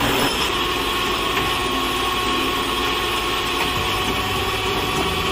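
Heavy tow truck's diesel engine running steadily, with a steady high whine on top.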